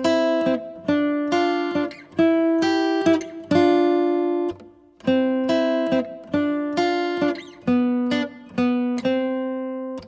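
Background music: a plucked acoustic guitar playing a slow melody of single notes, about two a second, with a short pause midway, then cutting off suddenly.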